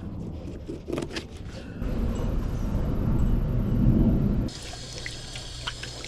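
Water running and splashing for a few seconds, cutting off suddenly, after a few light clicks. A fainter steady hiss with small ticks follows.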